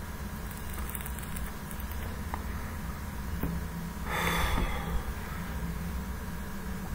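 Quiet room tone with a steady low electrical hum from the recording setup, a few faint clicks, and a short sniff through the nose about four seconds in.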